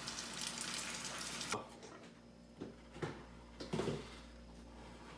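Beaten egg sizzling in a rectangular rolled-omelette pan, a steady hiss that cuts off suddenly about a second and a half in. After that, a few light knocks over a quiet room.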